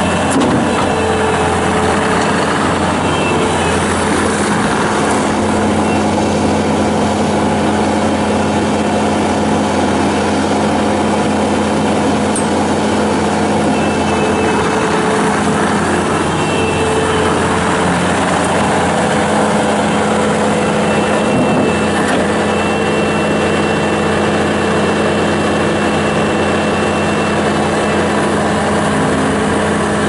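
Bobcat T590 tracked skid steer's turbocharged Kubota V2607 four-cylinder diesel running steadily as the machine drives across gravel.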